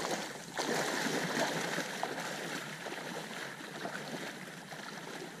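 Water sloshing and splashing around a person's legs as they wade through shallow marsh water. It fades gradually as the wader moves away.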